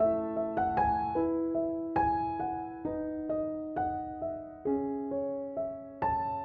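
Background piano music: a gentle melody of struck notes with sustained chords, several notes a second at an even pace.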